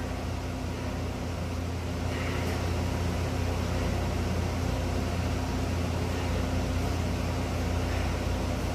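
A steady low hum over a faint even hiss, unchanging throughout.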